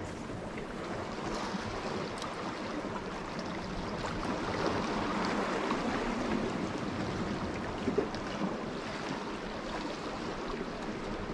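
Sea water washing over shoreline rocks: a steady surf hiss that swells and eases, with one brief click about two-thirds of the way through.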